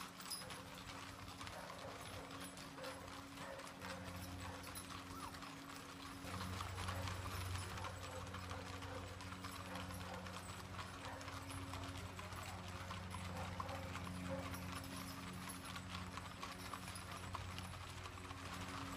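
Mule hooves clip-clopping on a paved road as a mule train of wagons passes, with the rattle of rolling wagon wheels. A steady low hum runs underneath and grows louder about six seconds in.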